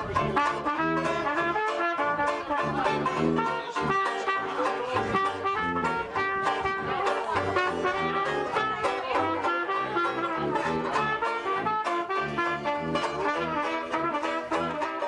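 A small live band of tuba, banjo and trumpet playing a jazz tune, the tuba keeping a steady bass line under the trumpet melody.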